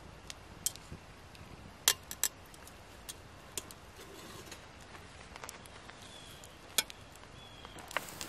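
About seven scattered sharp metal clinks and taps: steel tongs knocking against a can cooker pot and an aluminium foil pan as cooked meat is lifted out and the pot is shifted on the fire grate.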